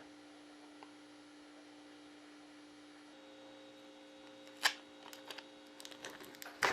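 Quiet room tone with a faint steady electrical hum, broken by one sharp click about two-thirds of the way through and a few light ticks near the end.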